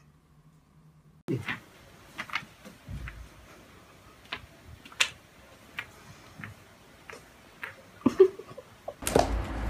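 Irregular sharp clicks and taps, a few each second, from a toy poodle's claws on a sliding wardrobe door and a wooden floor as it stands on its hind legs and paws at the door. Music comes in near the end.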